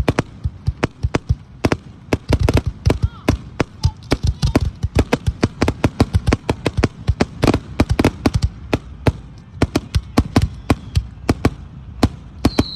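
Fireworks display: a dense, irregular barrage of aerial shells bursting, several sharp bangs a second with a deep boom to each, and a faint whistling glide now and then.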